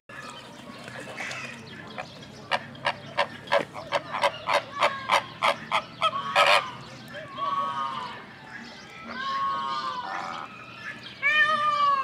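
Flock of flamingos honking: goose-like calls come in bunches every second or two over the second half. Before them comes a quick run of about fifteen sharp clicks, about four a second, as loud as the calls.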